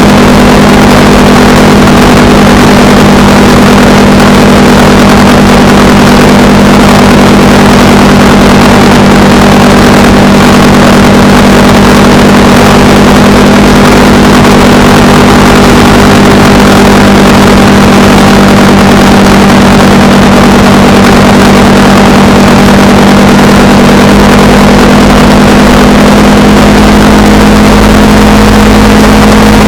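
Motorcycle engine running at a steady cruising speed, its pitch rising slightly near the end as it speeds up a little, under heavy wind rush on the microphone.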